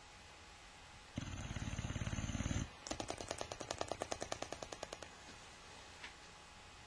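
Boxer dog snoring: a rumbling, fluttering breath in for about a second and a half, then its loose lips flapping in a fast run of pops, about ten a second, on the breath out, fading over two seconds.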